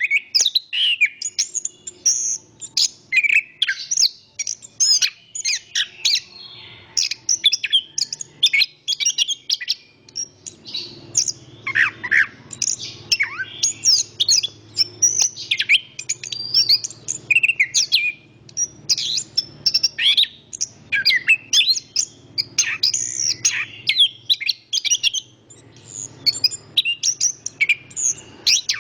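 Chestnut-capped thrush (anis kembang) singing continuously: rapid, varied strings of high chirps and whistled notes with only brief pauses. Beneath the song is a low rush of wind, strongest through the middle.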